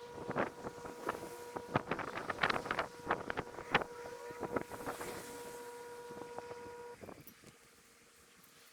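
Bonfire of dry grass, branches and bamboo crackling and popping in quick irregular snaps, thinning out after about five seconds. A steady humming tone runs under it and cuts off about seven seconds in.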